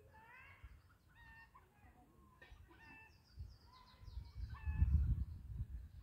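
Domestic fowl calling repeatedly in short clucks, with a run of quick high chirps from a small bird about three seconds in. A low wind rumble on the microphone builds in the second half and becomes the loudest sound.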